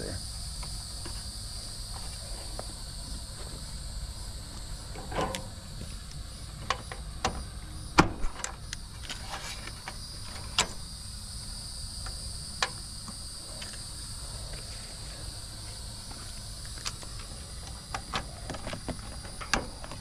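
Steady, high-pitched cricket chirping, with scattered clicks and knocks of a wire being moved and terminals handled in an air conditioner's control wiring; the sharpest knock comes about eight seconds in.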